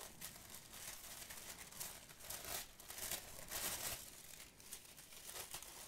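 Packaging crinkling and rustling as a parcel is unwrapped by hand, in several soft, irregular bursts.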